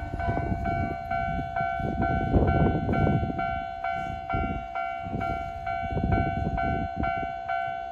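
Level-crossing warning bell ringing steadily at about two strikes a second, while a Keisei 3000-series electric train rolls through with a low wheel rumble and clatter that fades over the last few seconds.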